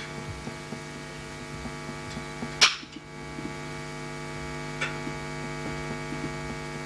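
Steady electrical mains hum on the sound system, a buzz with many overtones, broken by one sharp loud click about two and a half seconds in and a fainter click near five seconds.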